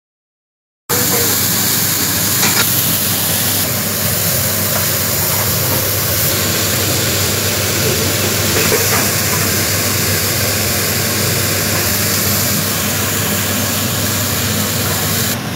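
Vegetables sizzling in a pan as they are stir-fried: a steady, loud hiss over a low, steady hum. The hiss starts abruptly about a second in and thins near the end.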